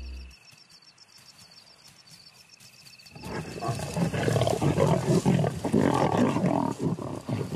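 Several lions growling and snarling together over a fresh kill, loud and rough, starting about three seconds in after a quiet start with faint insects.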